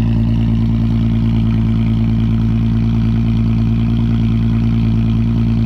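Infiniti G37 sedan's 3.7-litre V6 idling steadily through a loud custom exhaust, warming up after a cold start.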